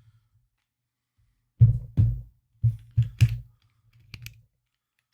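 Small tabletop tripod with its ball head being handled on a desk: a run of five dull knocks over about two seconds, then a lighter clatter.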